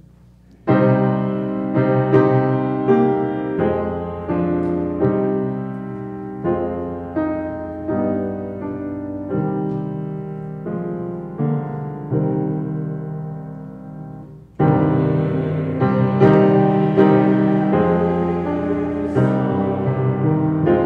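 Piano playing slow, sustained chords of church music, each chord fading after it is struck. The playing begins just under a second in and grows louder about halfway through.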